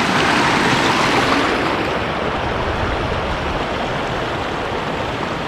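Steady rushing noise with no distinct events, its upper hiss easing slightly about a second and a half in.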